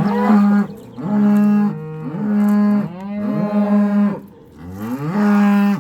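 Beef cow mooing loudly, about five long calls in a row: a mother cow calling her calf to follow her.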